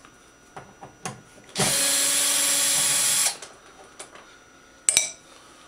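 Cordless drill/driver backing out a TV stand screw: a few light clicks, then one steady run of the motor lasting under two seconds. A single sharp metallic clink near the end.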